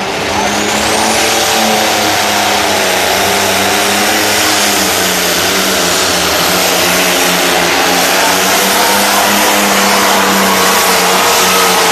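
Turbo-diesel engine of a John Deere pulling tractor running hard at full power under load as it drags a weight-transfer sled, loud and steady throughout, with a high whine rising over the first second or so.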